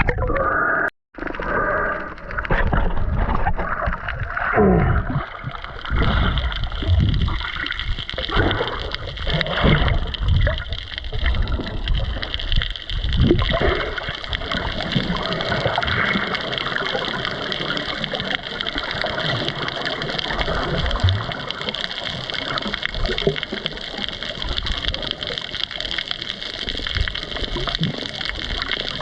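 Underwater water noise: gurgling and sloshing with low thumps of water movement, settling about six seconds in into a steady underwater hiss.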